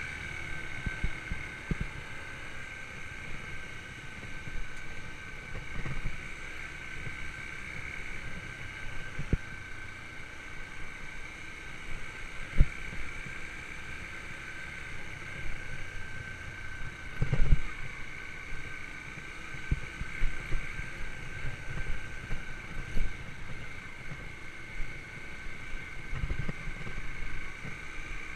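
Yamaha YBR125's single-cylinder four-stroke engine running with a steady whine. Irregular knocks and thumps sit over it, the loudest about 17 seconds in.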